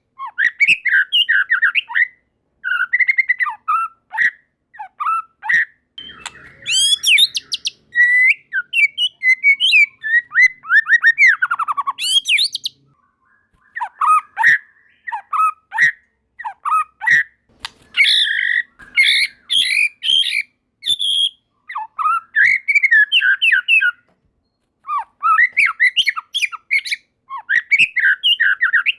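White-rumped shama singing loudly and continuously: rapid, varied phrases of whistles and chattering notes, with occasional high sweeping whistles and a few brief pauses.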